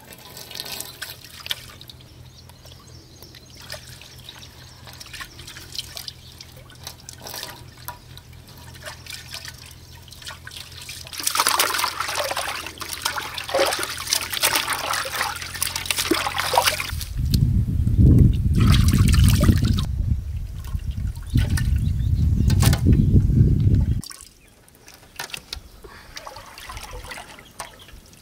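Water trickling and splashing, then a loud low rumble for several seconds that stops abruptly near the end.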